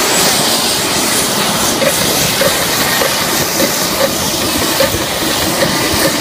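Blue Angels F/A-18 Hornet jet engines running during start-up, a loud steady rushing hiss. A faint regular ticking comes in from about two seconds in.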